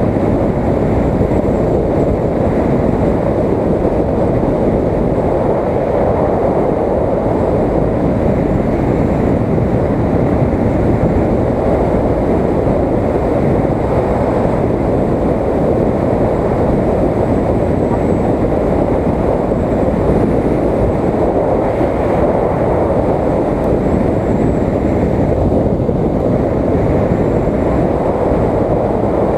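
Motorcycle riding at road speed: a steady rush of wind and road noise on the action camera's microphone, with no pauses or changes.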